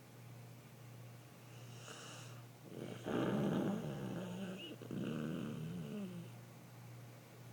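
A person snoring: two loud, drawn-out snores, the first starting about three seconds in and the second about five seconds in, over a steady low hum.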